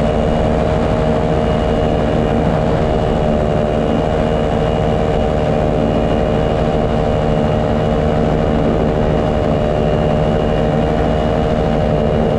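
Paramotor engine and propeller running steadily at an even cruise setting: a loud, unchanging pitched hum.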